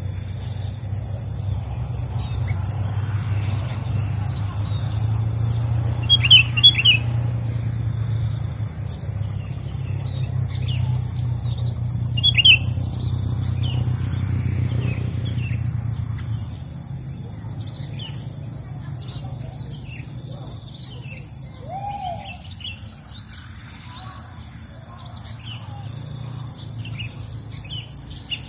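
Sooty-headed bulbuls calling with short, sharp chirps, loudest about 6 and 12 seconds in, over a steady high insect drone. A low rumble underneath fades out about 16 seconds in.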